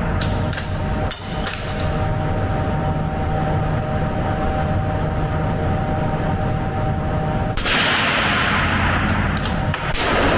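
Victrix Gladio V .308 bolt-action rifle at an indoor range: a quick run of four sharp metallic clicks as the bolt is cycled, then a single shot about seven and a half seconds in whose echo hangs on for a couple of seconds, followed by more bolt clicks.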